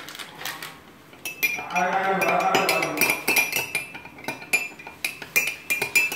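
Metal spoon stirring in a glass, a rapid run of sharp clinks against its side with the glass ringing faintly.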